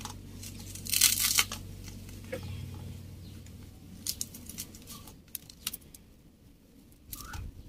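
Fingers mixing rice with fried bitter gourd on a stainless steel plate: soft scraping and rustling, with a louder rustle about a second in and scattered small clicks of fingers on the plate later.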